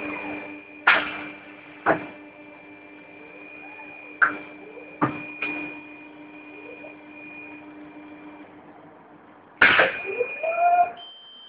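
Snap-on Quadriga tyre changer running with a steady motor whine while the tool works the tyre bead, with sharp clicks and knocks every second or so. The whine stops a little before the end, and a burst of knocks and short rising rubber squeaks follows.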